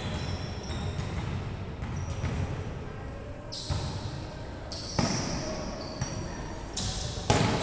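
Volleyball being struck: a few sharp slaps of the ball, the loudest about five seconds in and near the end, over a background of players' and spectators' voices.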